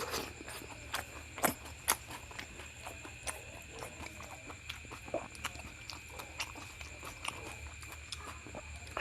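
Close-up chewing and wet mouth smacking while eating luchi with egg masala: a steady run of short clicks, with two louder smacks about a second and a half and two seconds in.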